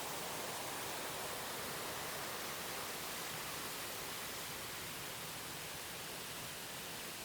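Steady rushing of water from a waterfall, an even hiss with no distinct events, easing off slightly in level toward the end.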